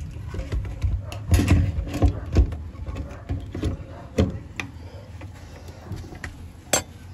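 Irregular knocks and clicks of hard plastic as a fuel pump module is lowered into the fuel tank opening and its flange seated, with a sharp click near the end.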